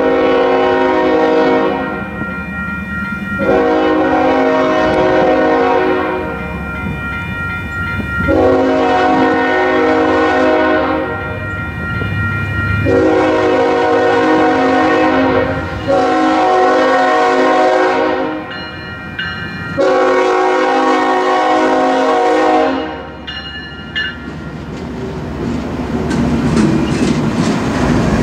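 Diesel locomotive horn on an approaching freight train sounding a series of about six long blasts, with a couple of short toots among the last ones: a grade-crossing warning. After the horn stops, the train's rumble and the clicking of its wheels on rail joints grow louder as it nears.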